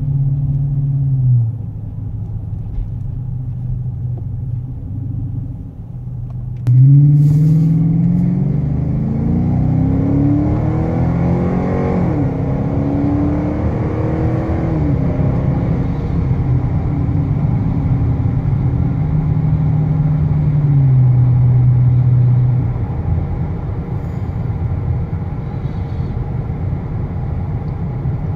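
Chrysler 300S's 5.7-litre Hemi V8, its resonators deleted and Magnaflow mufflers fitted, heard from inside the cabin under hard acceleration. From about seven seconds in the note climbs steeply and steps down at upshifts, then settles into a steady highway drone, with the revs dropping again after about twenty seconds.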